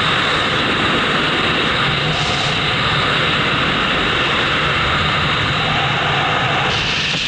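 Steady rush of wind over the camera microphone during a descent under a parachute canopy.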